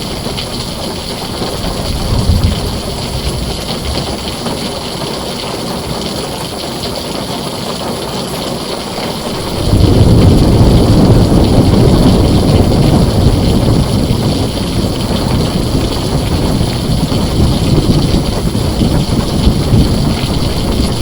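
Heavy rain falling on a tin roof as a steady hiss, with a deep rumble of thunder that comes in suddenly about halfway through and keeps rolling.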